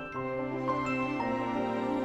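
Background music: an instrumental of held chords that change about once a second.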